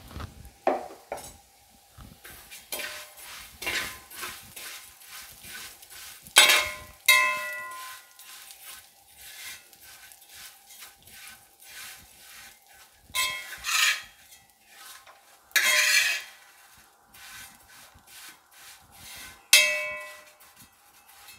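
Metal ladle stirring and scraping vermicelli as it roasts in ghee in a brass uruli, with about five louder ringing clangs where the ladle knocks against the brass pot.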